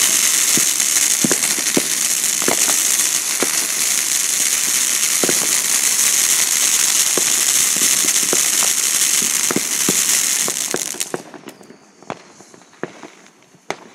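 Consumer firework burning with a loud steady hiss and scattered crackling pops. It dies away about eleven seconds in, followed by a few last pops.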